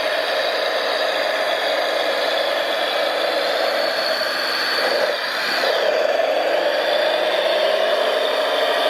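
Radio-controlled construction machine's drive running with a steady whir, dipping in pitch about five seconds in, then picking up again slightly louder.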